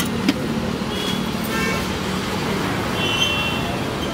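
Steady roadside traffic noise with short high horn toots about a second in, around a second and a half in and about three seconds in. A single metal clink of a steel pot lid just after the start.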